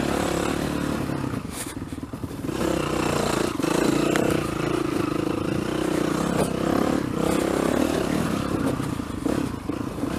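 Yamaha 450 dirt bike's single-cylinder four-stroke engine running under a rider. The throttle is rolled off about two seconds in and opened again, and the engine note rises and falls with the throttle. A few knocks and rattles from the bike are heard over the engine.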